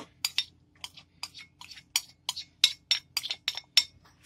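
Chopped garlic frying in hot oil in a pan: irregular crackles and pops, several a second.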